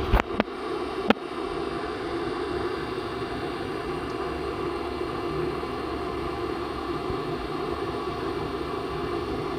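Sculpto 3D printer running: a steady whirring of its fans and motors as it prints. A few sharp clicks come in the first second.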